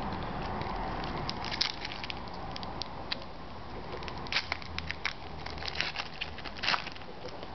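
Foil trading-card pack wrapper being torn open and crinkled, a run of sharp crackles with the loudest about one and a half, four and a half and six and a half seconds in.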